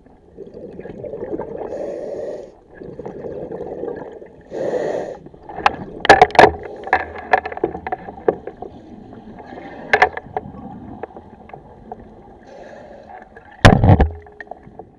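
Underwater camera sound of a spearfisher moving: muffled water swishing in stretches of a second or two, then sharp clicks and knocks from the spear gear against the camera housing, with a heavy thump near the end as the spear shaft is handled right at the lens.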